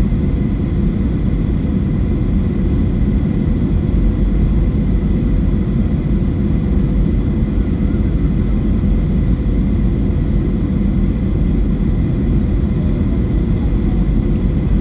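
Boeing 737-800 cabin noise: a steady low rumble of the jet engines and airflow, with faint steady whining tones above it and no change in thrust.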